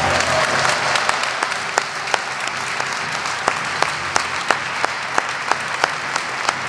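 Audience applause in a large hall, a dense patter of clapping that about halfway through falls into a steady rhythmic clap in unison, about three claps a second.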